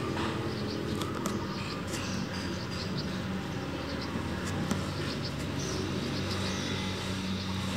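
Steady outdoor background noise: a low, even rumble, with scattered faint high chirps and ticks.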